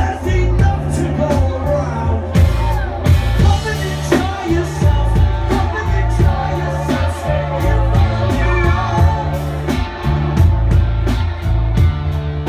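Live band with a horn section playing an instrumental passage: drums and bass guitar under a trombone line, with a long wavering held note in the middle.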